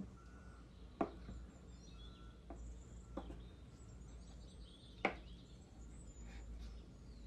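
Chef's knife chopping peeled hard-boiled eggs on a wooden cutting board: four sharp knocks of the blade meeting the board at uneven intervals, the loudest about five seconds in.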